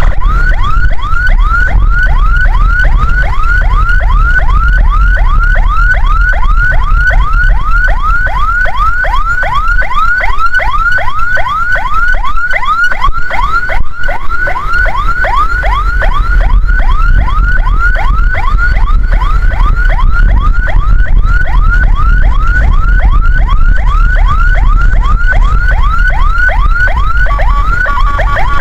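Ambulance's electronic siren on a fast yelp: quick falling sweeps, about three a second, over a loud low vehicle rumble. Near the end the siren pattern changes and a second, steadier tone joins in.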